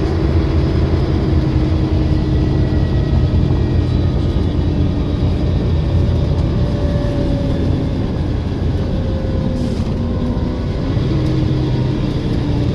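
An Olympian double-decker bus's diesel engine running under way, with a whine that drifts up and down in pitch as the bus changes speed.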